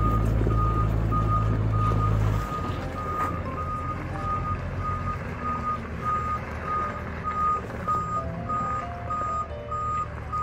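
Reversing alarm of an amphibious tour boat beeping steadily at one pitch, about two beeps a second. Under it runs a deep engine rumble that is loud at first and drops off sharply about two and a half seconds in.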